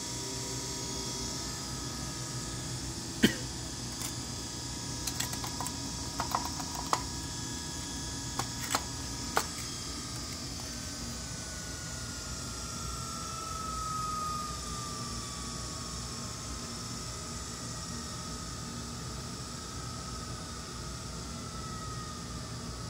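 Electric motor with newly fitted bearings running, a steady hum and whine, with a string of sharp clicks about 3 to 9 seconds in and a thin whine slowly falling in pitch through the second half.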